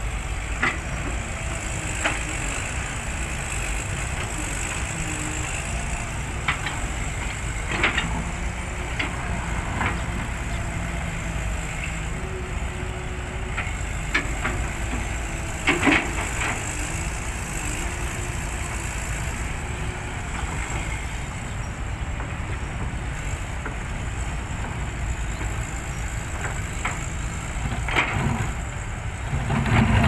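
Caterpillar hydraulic excavator working a pile of sand and gravel: its diesel engine runs steadily, with irregular clanks and knocks from the bucket scraping into the pile.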